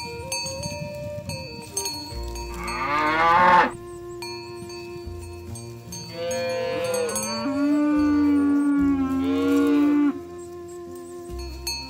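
Cattle mooing: a short loud moo about three seconds in, then a longer drawn-out moo for the middle several seconds, over steady ringing tones.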